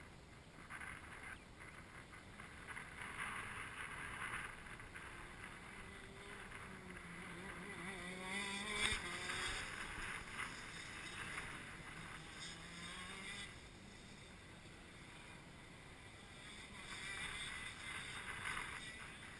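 Two-stroke shifter kart engine passing close by, loudest about nine seconds in, its pitch gliding up and down. Other karts are heard fainter around the track before and after.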